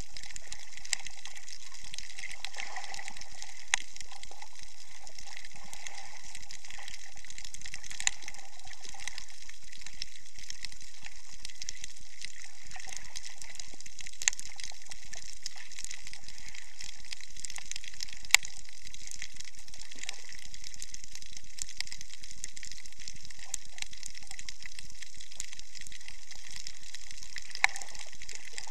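Underwater ambience picked up by an action camera submerged over a coral reef: a steady, high hiss with scattered sharp clicks and fainter ticks.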